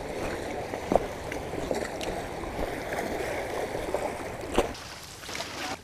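River water washing against a rocky shore, making a steady rushing noise, with two sharp knocks, one about a second in and one near the end.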